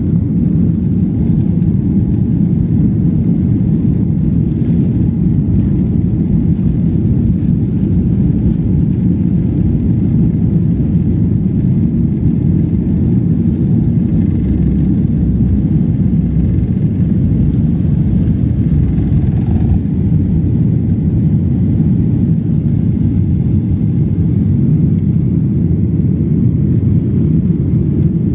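Steady, loud low rumble inside a passenger jet's cabin during its takeoff run and lift-off: the jet engines at takeoff power and the airframe heard through the fuselage.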